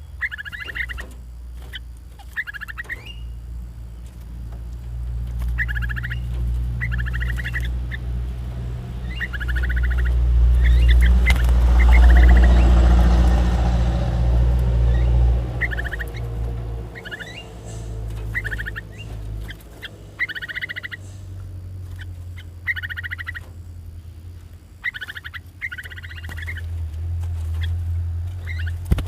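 Caged bulbuls giving short chattering calls in repeated bursts every second or two, over a low rumble that swells in the middle.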